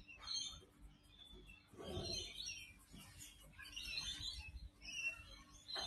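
Small birds chirping and twittering in repeated short calls, with a brief low muffled sound about two seconds in.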